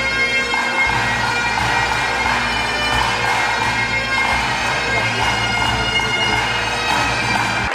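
Bagpipes playing a tune over their steady drones, cut off abruptly near the end.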